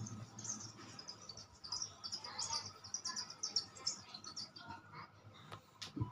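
Birds chirping rapidly and irregularly in high, short notes, with a sharp click near the end.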